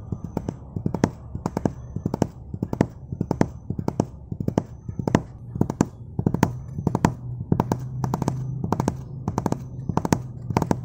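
Horse hooves clip-clopping at a trot: a steady run of sharp hoof strikes, many in close pairs, over a low steady rumble, as of a horse-drawn delman cart.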